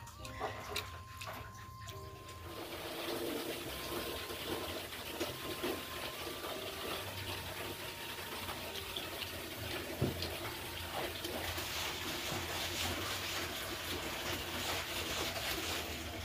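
Water running or splashing: a steady rushing hiss that comes in about two and a half seconds in and holds, with a single sharp knock around the middle.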